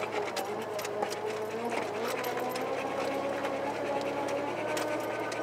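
1988 Chevy S10's 2.8-litre V6 running as the truck crawls over a rough off-road trail, its pitch wavering slightly with the throttle. Frequent rattles and knocks come from the cab and body over the bumps.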